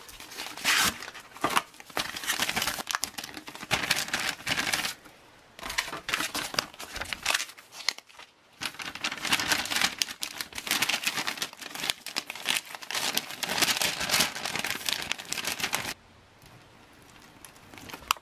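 Crinkling and rustling of MRE packaging as a food pouch is slid out of its cardboard sleeve and the plastic flameless ration heater bag is handled. The sound comes on and off, with two short pauses and a quieter stretch near the end.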